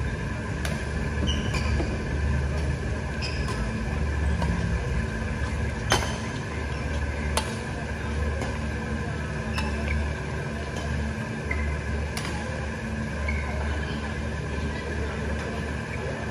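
A badminton rally: rackets strike the shuttlecock with sharp cracks every second or two, the loudest about six seconds in, and shoes give short squeaks on the court floor. A steady low hum runs underneath.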